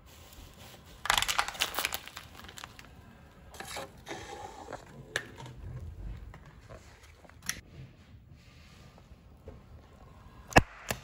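A car tyre rolls over cream-filled pastries in a clear plastic tray. About a second in the plastic crackles and crunches loudly as it is crushed, and softer crackling and squishing follow. Near the end come a few sharp snaps.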